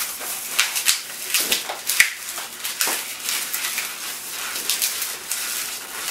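Inflated gray 260 latex modelling balloon being handled and twisted into pinch twists: the stretched latex rubs and squeaks under the fingers in a dense run of scratchy noises, with a louder squeak about two seconds in.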